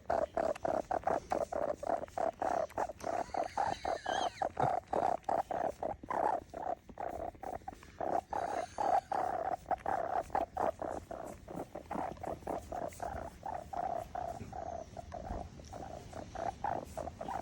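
A kitten making a strange purr-like noise: a quick, rhythmic pulsing of about four or five beats a second, held on one mid pitch.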